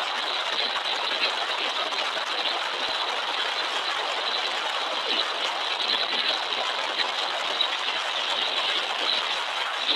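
Steady road and wind noise of a car driving along a tarmac road, heard from inside the moving vehicle, with no separate engine note or horn.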